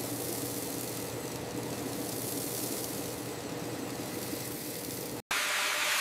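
Steady industrial machinery hum with a faint low drone and vibration, as from a running conveyor line. About five seconds in it cuts out for a moment and gives way to a louder, hissing machine noise.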